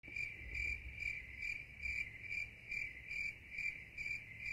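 Cricket-like insect chirping: a high trill pulsing evenly, a little over two chirps a second.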